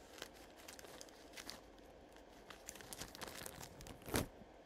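Faint crinkling and small clicks of small jewelry items being handled by hand, with one louder brief sound about four seconds in.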